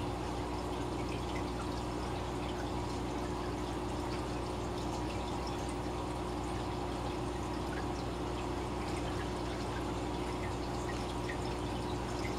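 Aquarium water bubbling steadily from air-driven bubble streams and a sponge filter's airlift pipe, with many small bubble pops and a steady low hum underneath.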